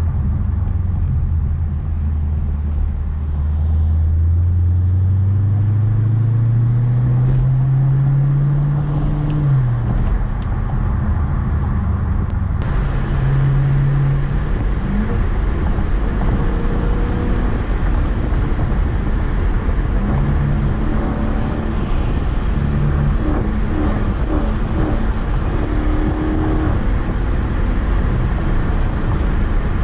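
2019 Dodge Charger 392 Daytona's 6.4-litre HEMI V8 with a loud exhaust, heard from inside the car under acceleration. Its pitch rises steadily, drops at an upshift about nine seconds in, climbs briefly once more, then settles into a steady cruising drone.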